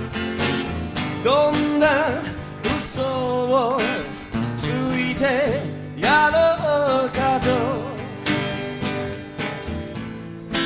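Two acoustic guitars playing an instrumental passage: a lead guitar with bent, wavering notes over strummed and plucked chords.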